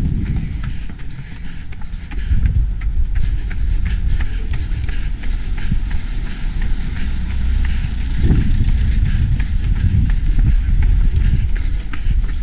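Wind buffeting the microphone of a camera worn by a running runner, with a low, uneven rumble that swells about eight seconds in. Over it come the runner's quick footsteps on paved street, about three a second.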